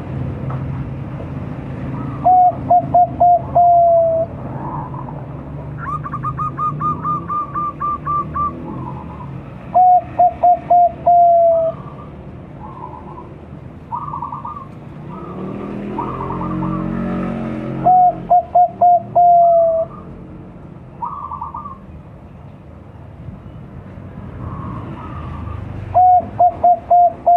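Five-month-old Bangkok-strain zebra dove (perkutut) cooing its song four times, about eight seconds apart: each phrase is a quick run of short notes ending in a longer note that slides down. Fainter calls of other birds come in between the phrases.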